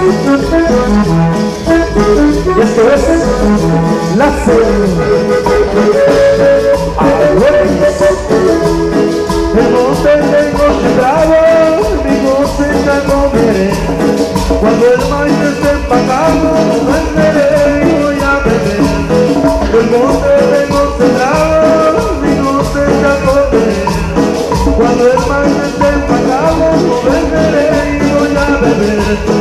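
Live cumbia band playing dance music with a steady beat, loud and continuous.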